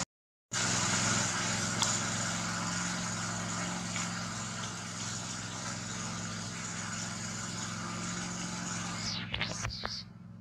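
A steady engine-like drone, a low hum with hiss above it, that cuts off abruptly near the end.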